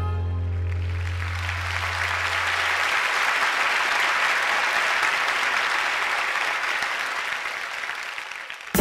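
Audience applauding as the ensemble's final chord, with a low bass note under it, dies away over the first few seconds; the clapping fades out near the end.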